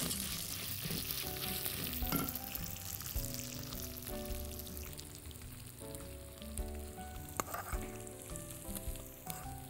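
Lisan asfour (bird's-tongue pasta) sizzling as it toasts in oil in a pot, stirred with a silicone spatula that clicks against the pot now and then. Soft background music plays underneath.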